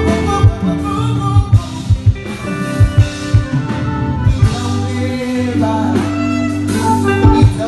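Live band playing a slow instrumental passage: electric guitar, bass and drum kit, with the drum hits steady.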